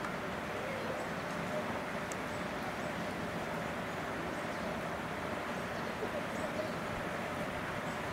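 Steady outdoor background hubbub, with a murmur of distant voices and no sound standing out from it.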